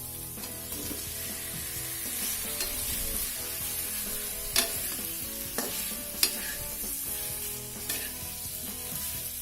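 Tofu and tempeh being stirred in a frying pan with sautéed spice paste: steady sizzling, with a few sharp knocks of the spatula against the pan.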